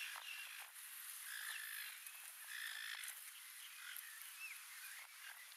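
Scattered short chirping animal calls, several overlapping, over a steady high hiss.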